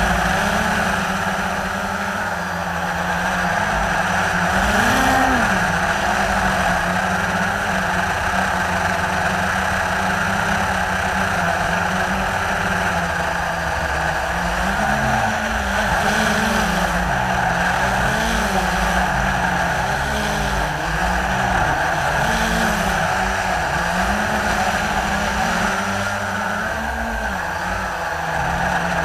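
Blade 350 QX3 quadcopter's electric motors and propellers buzzing steadily in flight, heard up close from the camera it carries. The pitch wavers up and down again and again as the motors speed up and slow down, most often in the second half.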